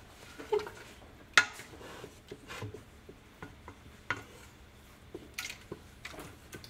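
A utensil stirring a thick tomato sauce in a stainless steel stockpot, clinking and scraping against the pot's sides in irregular knocks; the loudest knock comes about a second and a half in.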